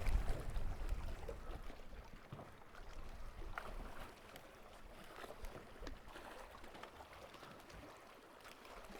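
Faint low wind rumble on the microphone, strongest in the first couple of seconds and then dying down, with a few faint clicks.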